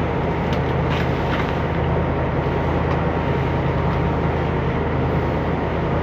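Yacht's engine running steadily: an even low drone with a hiss over it, and a few faint ticks in the first second and a half.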